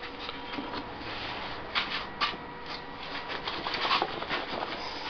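Handling noise at a woodturning bench: a run of irregular light clicks and rustles as the chuck-held vase and painting things are moved about by hand, over a faint steady hum.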